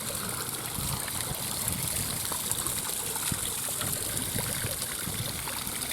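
Water from a waterfall splashing and trickling steadily.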